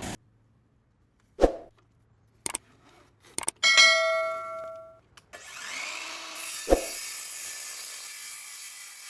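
A few sharp knocks, then a metallic clang that rings on for about a second. It is followed by a steady rasping noise, broken by one more knock.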